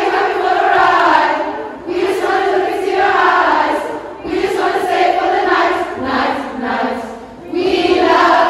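A large group of young women singing a chant-like song together in phrases of a second or two, clapping along.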